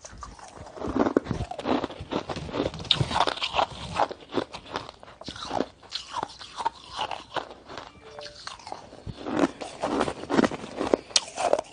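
Shaved ice being bitten and chewed: irregular crisp crunches as the ice breaks up in the mouth.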